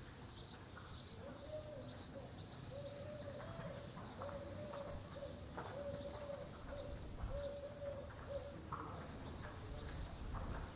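A dove cooing a run of repeated low notes, stopping a little before the end, over continuous high chirping of small birds.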